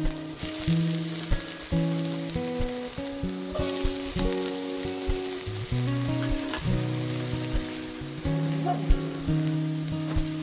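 Food sizzling in hot cooking oil in a pan: a steady frying hiss, with light background acoustic guitar music.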